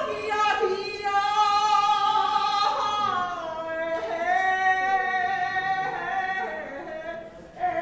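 A woman singing long, high held notes, her pitch sliding down about three seconds in and then holding steady.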